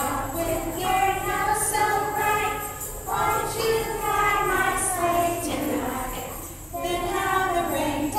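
A group of young children singing together, in phrases with short breaks about three seconds in and again near the end.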